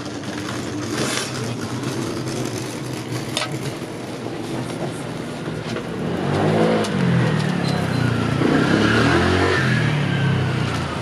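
A motor vehicle's engine passes on the street, rising in pitch and loudness from about six seconds in and falling away near the end, over a steady low hum. Two sharp knocks are heard early on.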